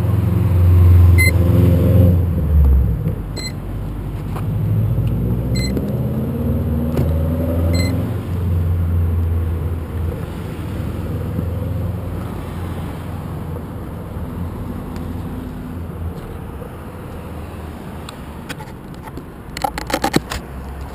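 Cars passing on the street: engine rumble swells and fades twice in the first eight seconds, and once more faintly later. A faint short beep repeats about every two seconds during the first eight seconds, and a quick run of clicks and knocks comes near the end.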